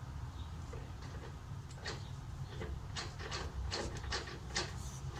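Short, irregular metal clicks and taps, roughly two a second, starting about two seconds in, as a Toyota Cressida's driveshaft is handled and worked into place under the car, over a steady low hum.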